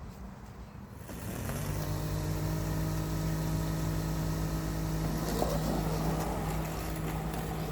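TerraMow robotic lawn mower's electric motors starting up about a second in, then running steadily at a constant pitch.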